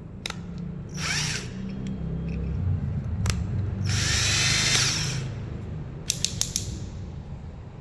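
Electric screw drill running in two short bursts, its motor whine rising as it spins up: a brief one about a second in and a longer one at about four seconds. Sharp single clicks come between the bursts, with a quick run of clicks near the end.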